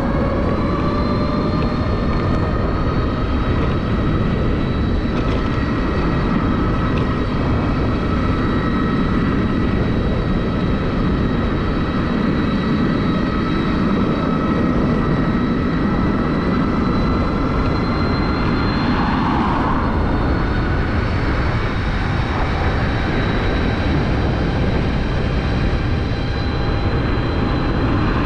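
Suzuki e-Let's electric scooter's motor whining steadily under way, its pitch rising a little at first and then holding, over a loud rush of wind and road noise.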